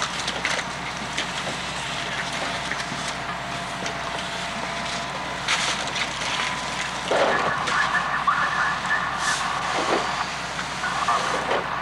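Fireground noise at a house fire: a steady rushing hiss with scattered knocks. A high steady tone comes in about seven seconds in and sounds on and off to the end.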